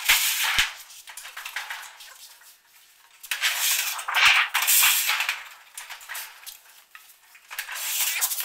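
Large thin metal sheet rattling and crinkling as it is handled and folded on a sheet-metal bending brake, in several bursts with a few sharp clicks.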